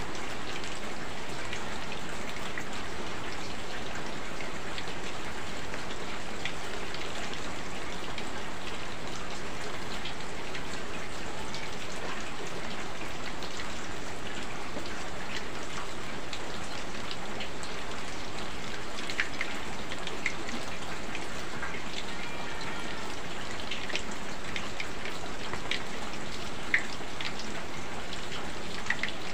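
Steady hiss of heavy rain, mixed with oil sizzling in a wok as battered banana pieces fry. Scattered short sharp pops through it.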